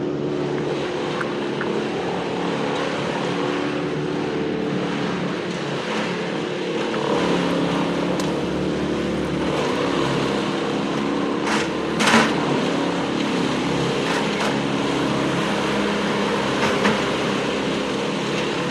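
Skid-steer loader's engine running and working, its pitch rising and falling as it is driven, with a few sharp knocks, the loudest about twelve seconds in.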